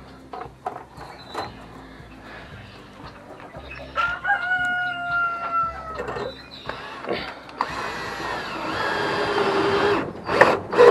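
A rooster crowing: one steady crow about four seconds in, then a longer, louder crow later on. Scattered clicks and knocks from handling metal hanger strap and wire cages come between.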